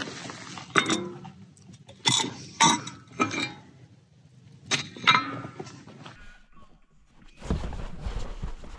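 Hard objects knocking and clinking together as they are handled, about six sharp strikes with a brief ring, then a steady low rumbling handling noise from about seven seconds in.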